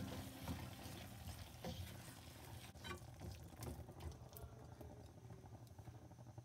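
Spatula stirring fried potatoes through a thick masala gravy in a nonstick pan: faint wet scraping with soft knocks against the pan, which thin out after about four seconds.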